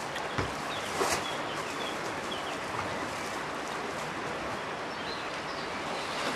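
Steady rush of river water running over a shallow riffle, with a few faint bird chirps and a brief soft rustle about a second in.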